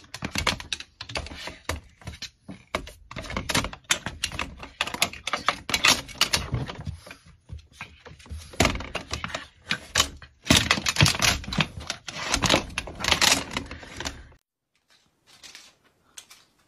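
Rapid, irregular clacking and knocking as a dog pushes through a plastic pet-door flap in a sliding glass door, the flap banging against its frame. The clatter stops suddenly near the end.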